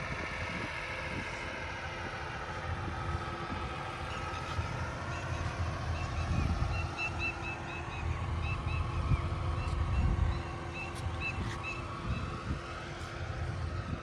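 Outdoor ambience: a low rumble of wind buffeting the microphone over the steady hum of a vehicle engine in the distance. A run of short, high chirps comes and goes through the middle.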